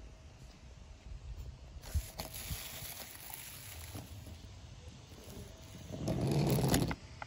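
Hot Wheels Battle Cat toy monster truck handled on a wooden ramp: scraping and a few light clicks as it is moved, then a louder rubbing rumble a little before the end as its rubber tyres are rolled across the wood.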